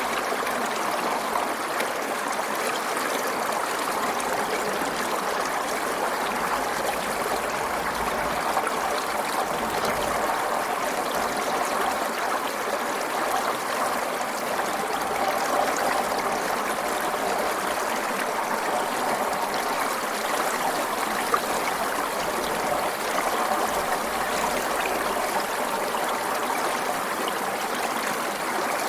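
Forest stream flowing steadily over stones, a continuous babble and trickle of water.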